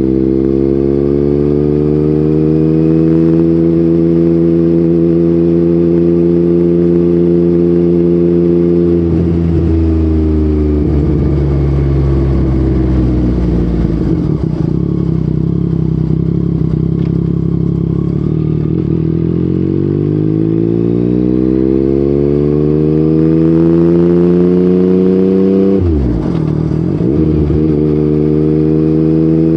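Yamaha MT-09's three-cylinder engine through an Akrapovic exhaust, riding along at steady revs, then dropping off about nine seconds in. The revs climb again in a long rise, break briefly for a gear change near the end, and settle steady.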